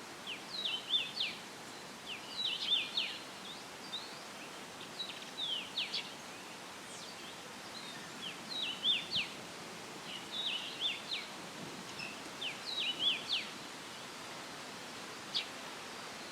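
A songbird repeating short phrases of quick, high, falling chirps, with pauses of a second or two between them. Underneath is a steady hiss of leaves rustling in a light breeze.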